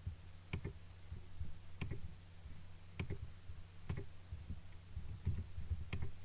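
Computer mouse clicks, each a quick double snap of button press and release, coming about once every second or so over a steady low electrical hum.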